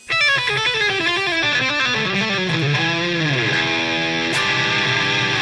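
Electric guitar intro music: a quick run of notes stepping downward, a falling bend about three seconds in, then a held chord.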